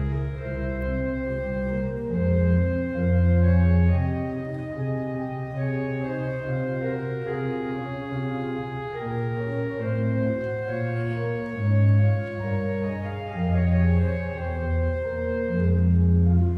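Organ playing slow, sustained chords, with deep bass pedal notes swelling in at several points.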